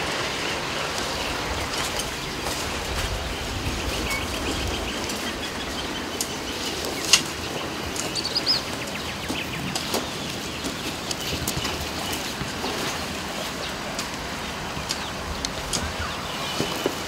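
Outdoor ambience of birds chirping and calling over a steady background hiss, with scattered light clicks and one sharp click about seven seconds in.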